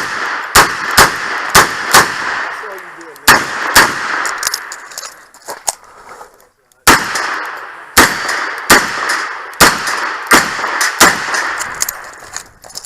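Smith & Wesson 929 9mm revolver fired in quick strings, about seven shots, then a pause of about three seconds, which is the reload, then about seven more shots in quick succession.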